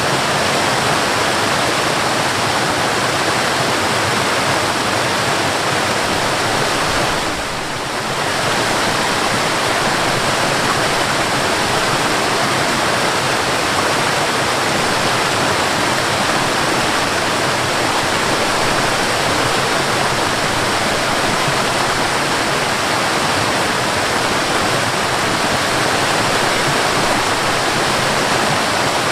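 Mountain waterfall: a steady, loud rush of falling, splashing water, dipping briefly in loudness about seven seconds in.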